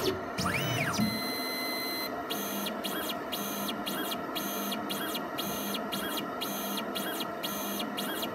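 PATHFAST immunoassay analyzer's pipetting mechanism running. About half a second in, a motor whine rises and falls in pitch once as the tips expel their liquid. Steady high tones and a soft pulsing pattern follow, repeating about once a second.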